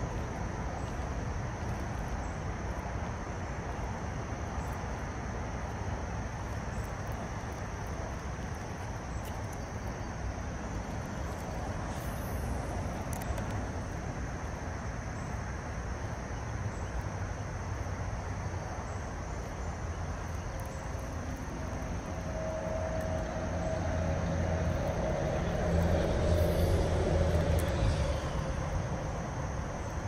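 Steady outdoor rumble and hiss. A low droning hum swells up about two-thirds of the way in and fades near the end.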